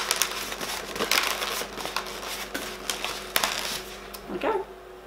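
Latex 260 modelling balloon loops rubbing against each other and against the hands as a flower-petal base is pressed and arranged. An irregular run of short rubbing sounds that thins out about four seconds in.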